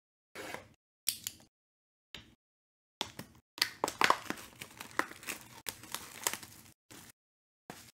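Clear plastic shrink wrap on a trading-card box being cut and torn off: a few short scratchy bursts, then about four seconds of dense crinkling and crackling from around three seconds in, with a couple of short crinkles near the end.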